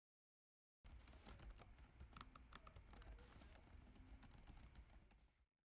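Typing on a laptop keyboard: a quick, uneven run of key clicks that starts about a second in and fades out near the end.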